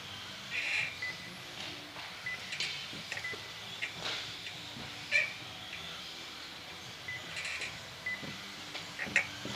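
Electric RC off-road cars racing on an indoor track: their motors whine in short rising and falling bursts as they accelerate and brake, with a few sharp clicks of cars landing or striking the track boards, the loudest about five seconds in and near the end.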